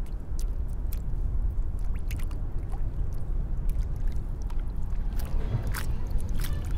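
A steady low rumble with scattered sharp clicks and ticks over it, the clicks coming more often in the last couple of seconds.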